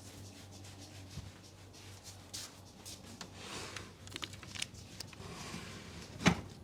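Hands working over hair and skin during a head massage: soft rustling and light scattered ticks. About six seconds in comes one sharp, loud snap.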